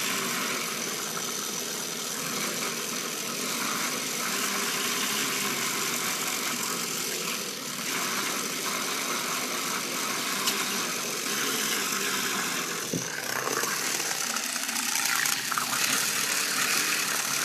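Lego electric motor and gear train running steadily, spinning a stirrer fast to make a whirlpool in a glass of water, with a light click about thirteen seconds in.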